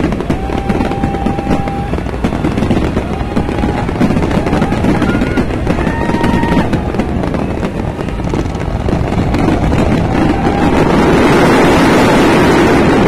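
Fireworks display: continuous rapid crackling and booming of bursting shells, with a few brief whistles in the first half. It builds into a denser, louder barrage near the end.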